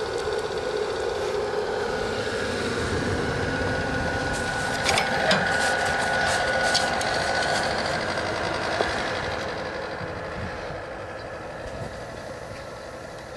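The draft blower fan of a Taylor T-450 outdoor wood stove running steadily with a thin whine, over the fire burning in the firebox. A few sharp clicks come about five seconds in, and the sound grows quieter over the last few seconds.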